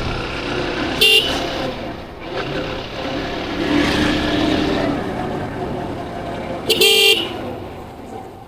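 Motorcycle ride heard from a helmet camera: steady engine, road and wind noise, with two short vehicle-horn honks, a brief one about a second in and a longer one near seven seconds.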